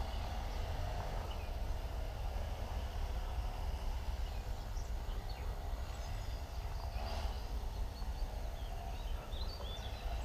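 Steady outdoor background noise with a deep low rumble, and a few faint, high bird chirps in the second half.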